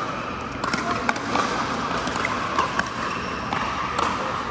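Pickleball paddles striking the plastic ball and the ball bouncing on the court: a handful of sharp pops at irregular intervals over a steady background hubbub.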